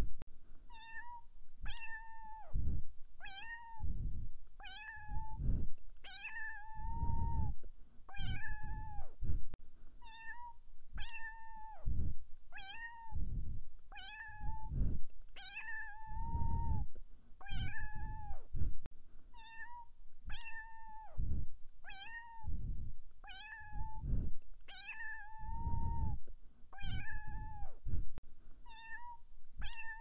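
A cat meowing over and over, about one short meow a second, with a longer drawn-out meow every few seconds.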